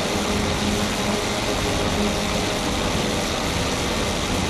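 Fire tender's pump engine running steadily while its roof-mounted monitor jets water, a loud even rushing noise with a low drone underneath.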